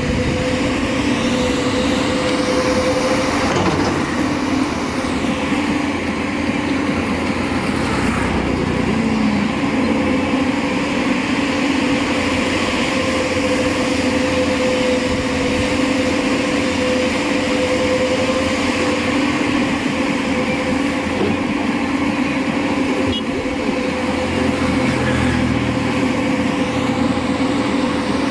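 JCB backhoe loader's diesel engine running steadily as the machine digs, with a constant drone.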